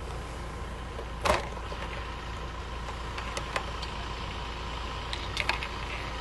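A vehicle engine idling steadily, with one sharp knock about a second in and a few faint clicks later.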